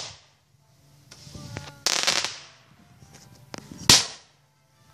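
Consumer firework shots going off: two loud bangs about two seconds apart, each just after a fainter pop.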